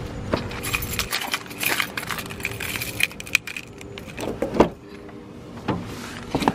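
A bunch of car keys jangling and clicking in hand, then a few heavier knocks as a car door is opened and someone gets into the seat.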